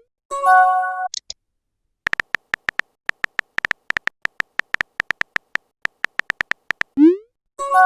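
Phone-messaging sound effects: a chiming notification chord of several tones about half a second in, then a run of short, irregular electronic tick-beeps of on-screen typing. Near the end a short rising whoosh is followed by the chime again.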